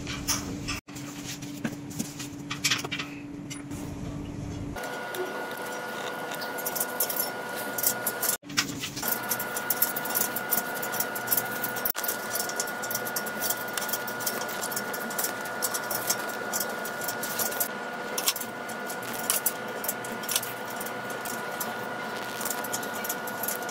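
Handling noise of bar tape being wound and stretched onto drop handlebars: irregular rustling and crackling, over a steady background hum that shifts at a few abrupt cuts.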